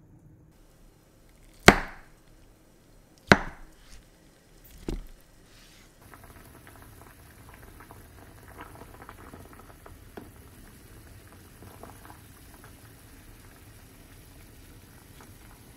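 Three sharp knocks about a second and a half apart, then a pot of daikon at a rolling boil: steady low bubbling with faint scattered pops.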